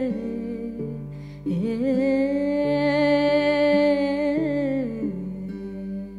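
Woman singing without words, a long held, wavering note, over the plucked drone of the round-bodied string instrument she plays. The voice fades briefly about a second in, swells into the long note, and drops away near the end, leaving the strings sounding.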